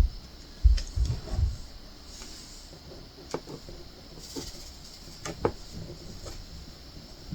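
Diamond painting work at the table: a couple of dull thumps in the first second and a half, then scattered light clicks and taps as resin drills are picked up and pressed onto the acrylic ornament with the drill pen.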